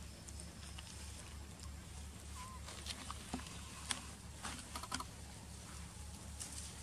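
Faint rustling and scattered light clicks in grass and leaf litter as macaques move about, over a low steady hum, with a brief faint chirp about two and a half seconds in.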